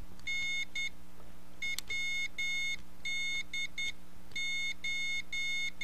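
Morse code (CW) side tone from a homemade 10-meter beacon keyer: a high-pitched beep keyed by hand with the keyer's switches into short and long elements, in three groups with pauses between them.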